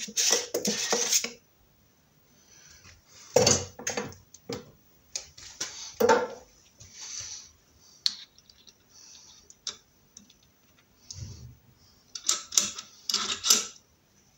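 A thin metal blade scraping and clicking against a metal tin as thick grease is scooped out and worked into a driveshaft joint. It opens with a dense clatter of the tin being handled, then there are scattered single clicks and knocks, and a quick cluster of clicks near the end.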